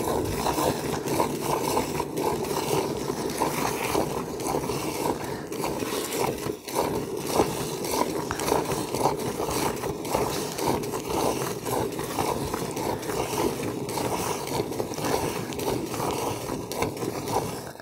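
Cow being milked by hand from both sides at once: jets of milk squirting into a part-filled pail in a quick, even rhythm of strokes.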